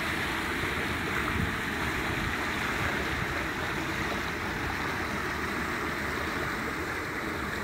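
Water running in a small roadside channel: a steady rushing with no breaks.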